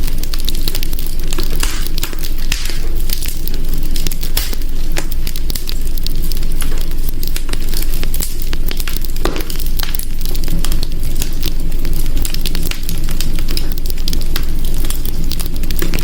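Wood fire crackling steadily in a hearth, with many sharp snaps and pops over a low, even rumble of burning. One louder pop comes a little past halfway.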